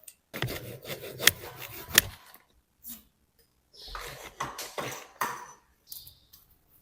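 A bicycle's steering headset creaking and grinding in two stretches of dry rubbing, with sharp clicks in the first: the steering noise being shown.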